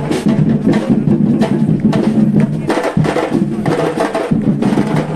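Live music with hand percussion and drums: frequent sharp percussion strikes over steady low notes.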